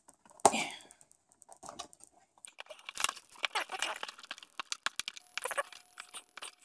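Fingers and nails picking and scratching at the stubborn seal of a cardboard box, with irregular crackly clicks and scrapes of card and tape. A brief louder noise comes about half a second in.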